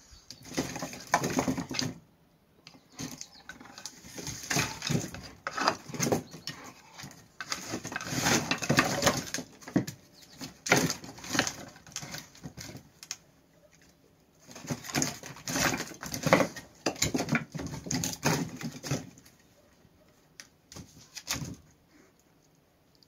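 Split firewood pieces knocking, scraping and sliding as a dog digs and noses its way into a woodpile, in bursts of one to four seconds with short pauses between.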